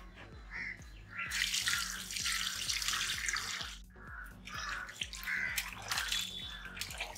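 Water poured from a plastic pot into a perforated steel bowl of raw chicken pieces, a steady rush that stops sharply about four seconds in. Then hands splash and squelch the chicken in the water as it is washed.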